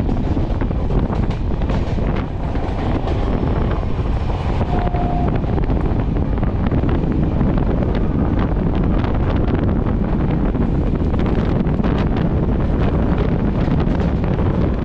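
Darjeeling Mail express train running on the track: a steady loud rumble and rattle with frequent short clicks, and wind buffeting the microphone.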